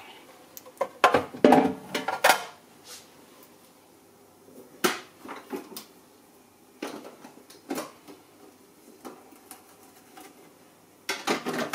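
Hard plastic parts of a Philips super-automatic coffee machine being handled as it is taken apart for cleaning, with the clear water tank pulled out. It makes a quick cluster of knocks and clatter about a second in, then single knocks every second or two.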